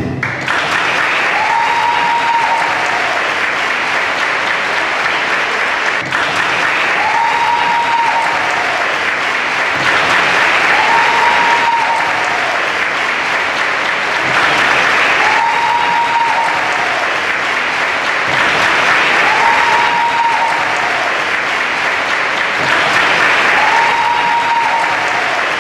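Crowd applauding steadily, a dense clapping that goes on without a break. A short high tone of the same shape comes back about every four seconds.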